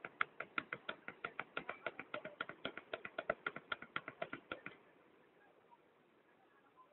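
A rapid, even series of sharp clicks, about six a second, that stops about two-thirds of the way through, leaving a faint hiss.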